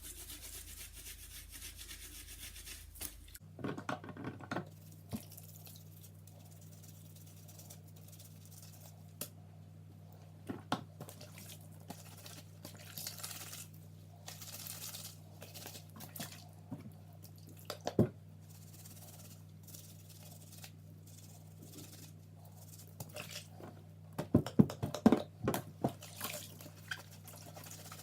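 Cleaning cloths being handled in a basin of soapy water: sparse drips and small splashes with scattered light knocks, and a cluster of louder knocks near the end. A steady low hum runs underneath from a few seconds in.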